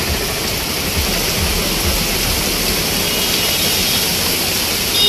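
Heavy rain pouring down on a road in a steady hiss, with traffic moving through the wet street.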